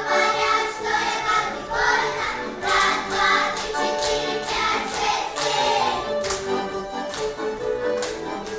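Music with voices singing together and sharp percussive hits.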